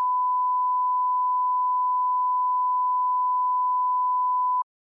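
Steady 1 kHz line-up test tone of the kind played with colour bars: one unchanging pure beep that cuts off suddenly near the end.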